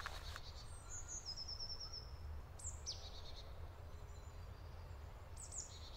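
Faint forest ambience of small songbirds calling, with a quick trill of about six high notes about a second and a half in and short falling calls near the middle and the end, over a low steady rumble. It cuts off suddenly at the end.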